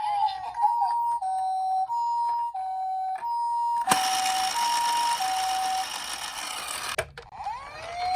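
Toy ambulance's electronic two-tone siren, the Japanese 'pee-po' pattern: a high and a low tone alternating about every two-thirds of a second. About four seconds in, a click starts a loud rushing noise that runs for three seconds and ends with another click. Near the end a toy police siren's wail starts and rises.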